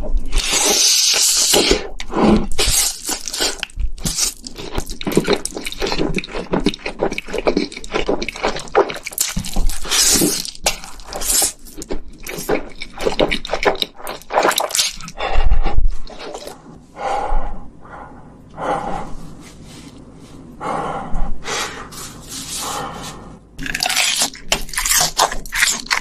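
Close-miked eating sounds: loud wet slurps of spicy buldak fire noodles and chewing, in quick irregular bursts one after another.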